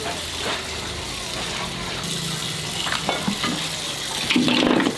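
Tap water running in a steady hiss into a metal wok while meat is rinsed in a plastic colander, with a few light knocks about three seconds in and a louder stretch shortly before the end.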